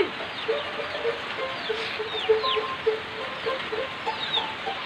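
Chickens clucking in a steady run of short low clucks, about three a second, mixed with higher chirps that fall in pitch, over the steady hiss of heavy rain.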